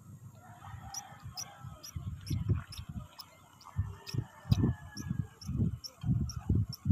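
Abu Garcia Black Max baitcasting reel being cranked to retrieve a lure: a steady ticking about three times a second, with low handling bumps on the rod and reel. Chickens cluck faintly in the background.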